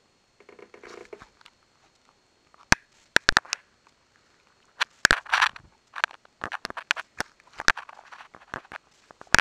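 Irregular sharp clicks and crackles, some in quick clusters of three or four, with brief rustle-like noise between them.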